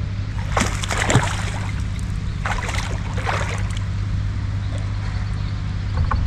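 Water splashing and sloshing beside a fishing kayak in short bursts, about half a second in and again around two and a half seconds, over a steady low rumble.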